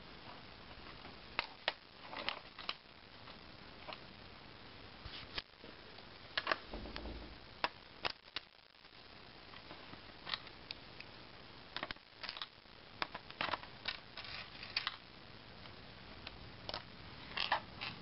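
Small screwdriver unscrewing the optical-drive retaining screw on the plastic underside of a Dell Inspiron 1525 laptop: faint, irregular clicks and scrapes of the bit in the screw head.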